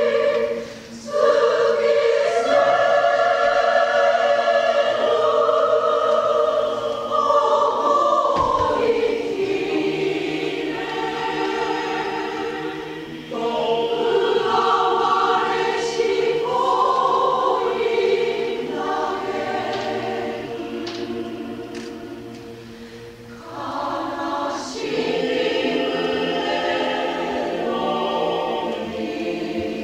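Community choir singing a Russian song in long held phrases, with brief breaks between phrases about a second in, around thirteen seconds and around twenty-three seconds.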